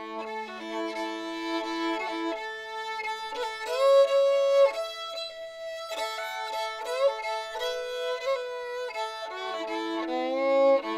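Background music: a fiddle plays held notes, sliding up into some of them.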